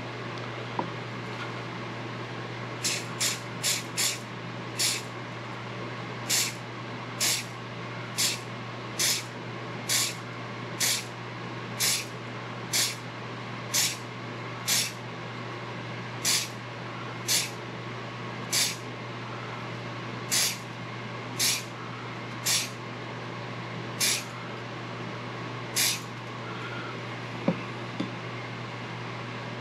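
About two dozen short hissing spritzes from a hand spray bottle, roughly one a second, starting about three seconds in and stopping near the end. They mist a cure-accelerating spray onto the ring's finish coating so it sets faster. A steady low hum runs underneath.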